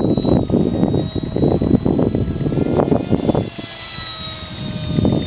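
A 55 mm six-blade electric ducted fan on a micro RC jet whines steadily as it flies overhead. Its pitch rises a little about halfway through and falls again as it passes. A loud, gusty rumble of wind on the microphone runs underneath and eases near the end.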